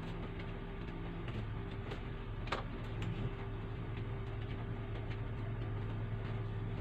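Steady low mechanical hum with faint scattered ticks and one sharper click about two and a half seconds in.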